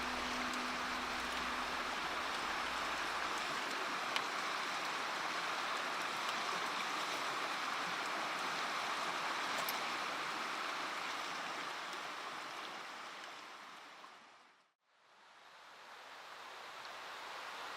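Mountain stream water rushing steadily. It fades out to silence about fifteen seconds in, then fades back up.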